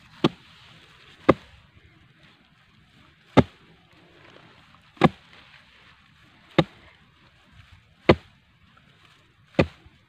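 A ribbed steel rebar bar jabbed hard into dry soil around a shrub's roots to dig it out, seven sharp strikes one every one to two seconds.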